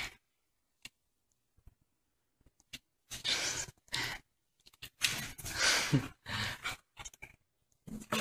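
Several short breathy hissing and huffing bursts from a pet, starting about three seconds in, with a brief low falling grunt near six seconds.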